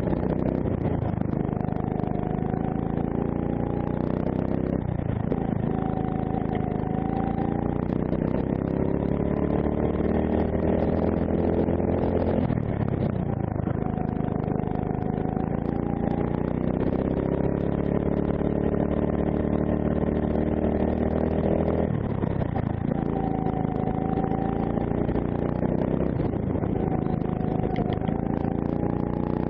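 A PCR kart's D&M 270cc single-cylinder four-stroke engine heard onboard at racing speed. Its pitch climbs steadily on the throttle, then falls sharply three times as the throttle is lifted for corners, before climbing again.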